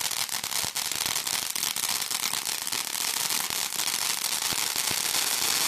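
Ground cone fountain firework burning: a steady hiss with dense, rapid crackling pops throughout.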